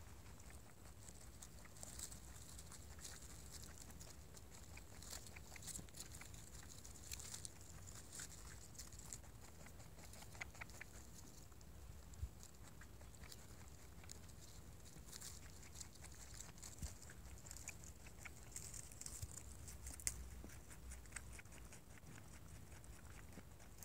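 Flemish Giant rabbit nibbling and chewing grass close up: faint, quick crunching clicks that come in clusters.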